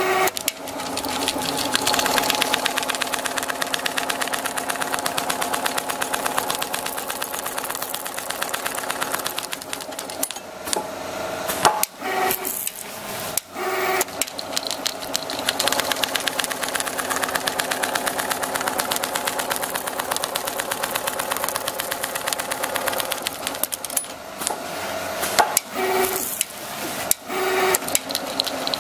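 Richpeace automatic single-head pattern sewing machine stitching a quilted upholstery panel: a fast, even needle chatter that stops briefly a few times around the middle and again near the end.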